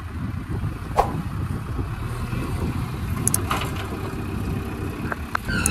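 JCB 3DX backhoe loader's diesel engine running with a steady low rumble as the machine drives and turns. A sharp knock comes about a second in, and a few more short knocks come later on.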